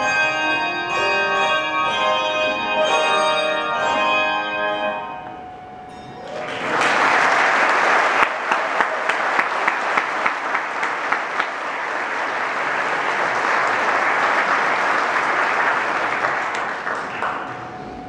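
A handbell choir rings its closing chords, the bells ringing on and dying away about five seconds in. The audience then applauds for about ten seconds, louder than the bells.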